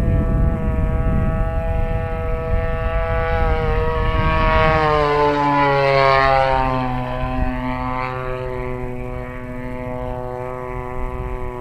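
Single-cylinder two-stroke gas engine (Desert Aircraft DA-35) of a 73-inch Laser 230z aerobatic RC plane flying past. It is loudest about halfway through, where its pitch drops steeply, then it carries on steadily at a lower pitch and grows fainter.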